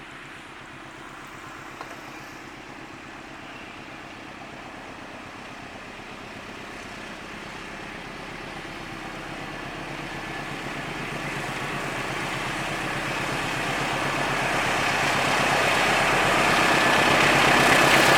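Diesel locomotive engine of an approaching train, its drone growing steadily louder as it nears.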